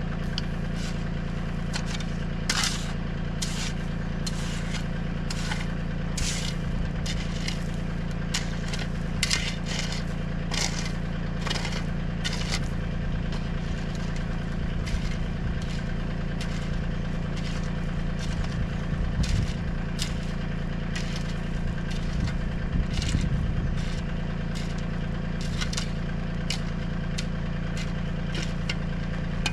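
Tractor engine running at a steady speed while working a dirt road, with frequent sharp clicks and knocks from scraped dirt and stones. The engine load swells briefly a couple of times past the middle.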